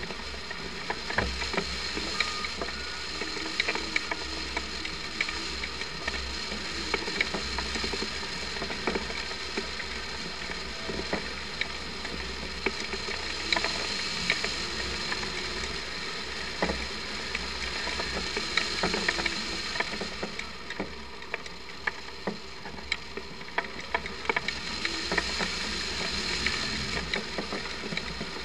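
Airflow rushing over a camera mounted on a hang glider in flight, with a steady low buffeting rumble and many irregular sharp clicks and rattles from the mount and frame.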